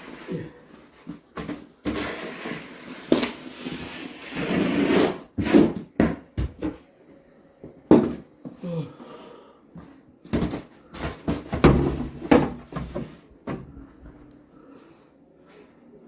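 Snow shovel clearing snow: irregular scrapes with sharp knocks between, busiest in the first two thirds and dying down near the end.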